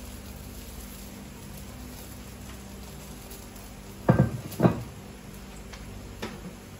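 Steady low kitchen hum, broken by two dull thumps about half a second apart about four seconds in, and a lighter knock near the end.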